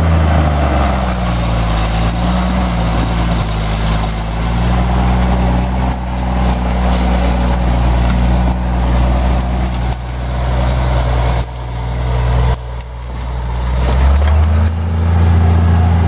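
Engine of an International tractor running steadily as it pulls a wagon loaded with firewood, its note rising and getting louder about a second and a half before the end.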